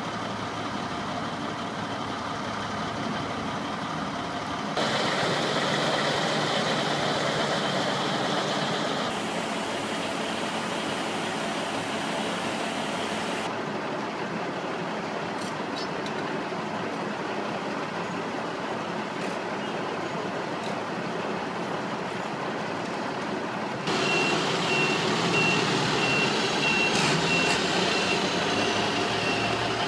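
Heavy diesel trucks running at a work scene, a steady engine and traffic noise that changes abruptly at several cuts. About four-fifths of the way in, a truck's reversing alarm starts beeping steadily, one high beep repeated evenly, with the engine noise louder under it.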